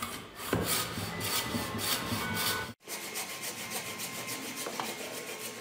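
A frame saw rasping back and forth through a thick block of hardwood. There is a brief break about three seconds in, then quicker, shorter strokes.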